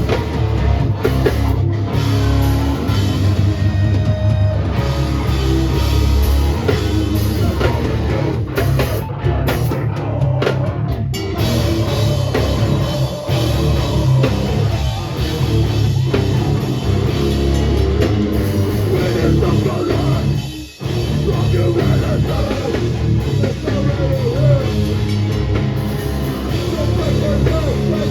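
Hardcore/metalcore band playing live: distorted guitars, bass and drums, loud and dense, with a sudden brief stop about three-quarters of the way through before the band crashes back in.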